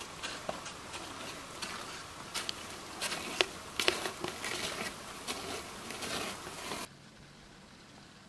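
Irregular crunching, scraping and sharp clicks close to the microphone, from a climber's steps and gear moving on snow. About seven seconds in it cuts off suddenly to a quieter steady hiss.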